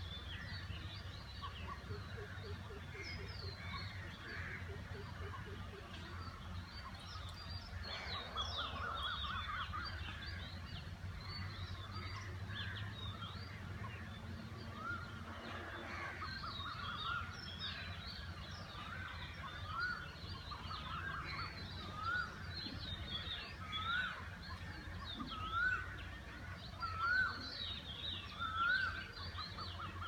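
Dawn chorus of many birds chirping and calling at once. In the second half one bird repeats a short rising note about once a second. A low steady hum runs underneath.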